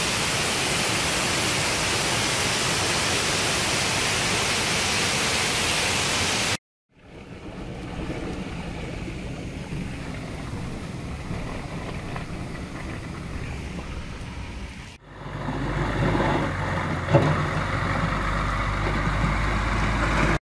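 A loud, steady rush of outdoor noise, then a sudden cut to the quieter rumble of a pickup truck driving through flood mud, heard from inside the cab. A second cut brings a low outdoor rumble with a single sharp knock about two-thirds of the way through.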